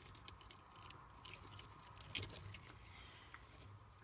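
Bearded dragon chewing a hornworm: faint, rapid crunching clicks, busiest about halfway through.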